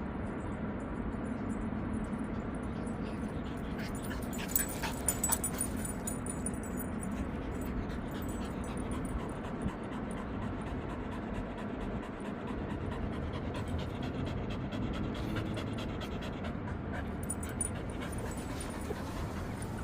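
Border collie panting, with wind rumbling on the microphone. A few sharp clicks about five seconds in.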